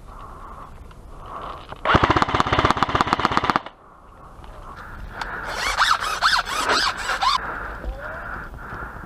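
Airsoft electric gun firing one rapid full-auto burst of about a second and a half, roughly a dozen shots a second. A few seconds later comes a hissing stretch with wavering whistle-like tones.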